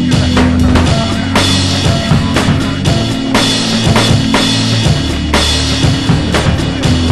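Background music with a drum kit and a bass line, keeping a steady beat.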